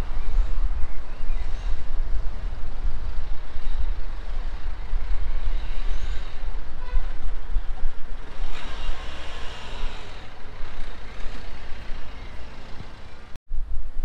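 Steady low outdoor rumble of city ambience, with a swell of louder noise about eight and a half seconds in and a momentary dropout just before the end.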